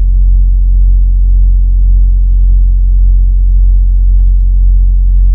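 Semi-truck diesel engine idling, heard from inside the cab as a steady, loud low rumble.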